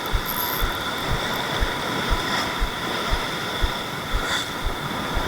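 Small spinning reel being cranked to retrieve a lure, a soft low knock about twice a second with a steady whine over it.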